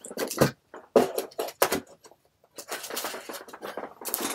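Bagged comic books being handled and pulled from a cardboard box: a few sharp taps and clicks, then plastic sleeves rustling.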